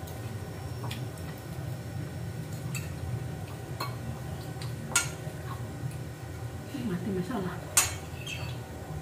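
A spoon clinking and scraping against plates while eating, in a few scattered sharp clinks, the loudest about five seconds in and near the end, over a steady low hum.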